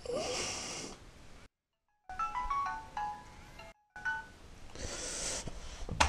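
A quick electronic ringtone-style melody of short stepped notes, like a phone alarm, plays from about two seconds in until near four seconds. A person's loud snoring breaths come before and after it.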